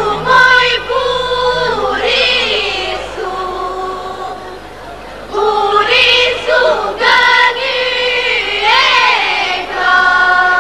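Group of girls singing an Albanian folk song together in long held phrases, softer for a couple of seconds in the middle and then full again.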